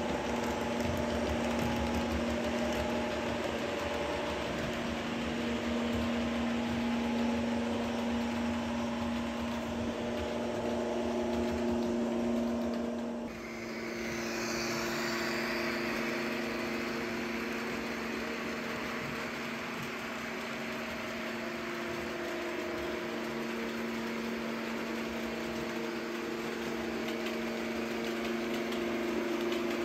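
Model railway diesel locomotive running on the layout, a steady engine drone with several held tones. The sound dips briefly about halfway through and comes back with more hiss.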